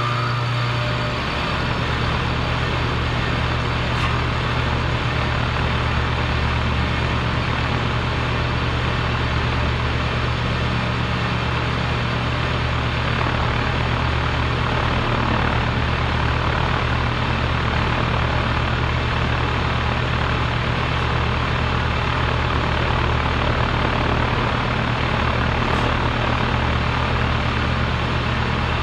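Compressor running steadily: a loud, even mechanical drone with a strong low hum and a steady rushing noise above it.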